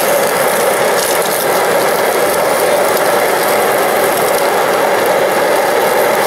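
MSR Dragonfly liquid-fuel backpacking stove burning at full flame under a frying pan. It makes a loud, steady rushing noise with a fast, rattly texture and no let-up.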